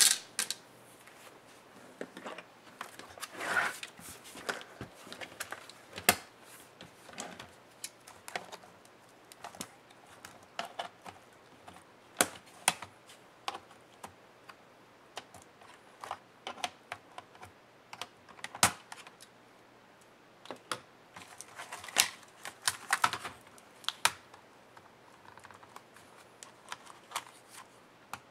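Plastic clicks, snaps and key clatter of a Lenovo ThinkPad E550 keyboard being pried loose from its palmrest with a thin tool and lifted out, in irregular sharp taps, the loudest near the start and again around the middle and towards the end.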